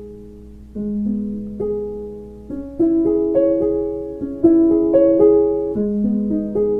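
Calm instrumental music: slow arpeggiated piano notes, a new note about every half second, each left to ring. It grows louder about three seconds in.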